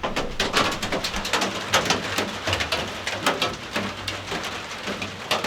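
Rain falling on a hunting box blind: many irregular, sharp drops tapping on the roof and walls.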